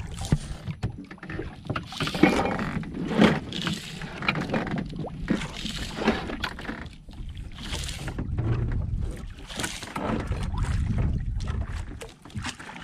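Squid handline being worked by hand over the side of a small wooden outrigger boat: irregular rustles and knocks of line, hands and hull, over a steady low rumble.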